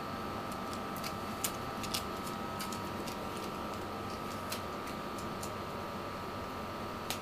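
A few small, sharp clicks and taps from a pencil box being handled and set down on a pen-display screen, over a steady hiss with a faint high whine.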